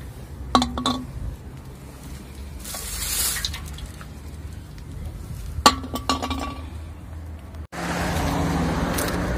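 Aluminium drink cans clinking with a short metallic ring, faintly about half a second in and louder about six seconds in, with a rustle between. Near the end the sound cuts abruptly to a steady outdoor background.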